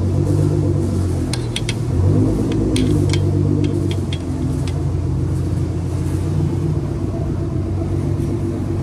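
A Nissan GT-R's engine idling behind the table with a steady, deep growl. A few light clicks of a fork on the plate come between about one and five seconds in.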